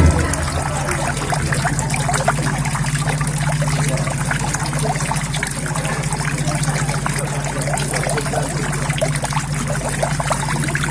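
Water trickling and splashing steadily into a koi pond, with a steady low hum underneath.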